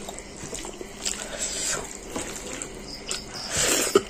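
Eating rice by hand: fingers squeezing and gathering soft cooked rice on a metal plate, with wet chewing mouth sounds and a sharp click near the end.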